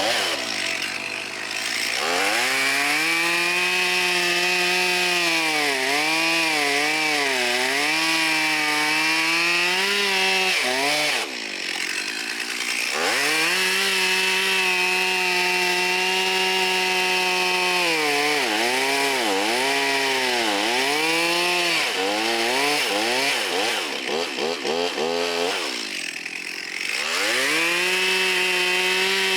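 Stihl MS362 two-stroke chainsaw revving to full throttle and cutting through oak, its pitch sagging and wavering while the chain is in the wood, and dropping back to idle twice before revving up again. It holds its speed without bogging out, the sign that its new fuel lines have cured the air leak that had been starving it of fuel.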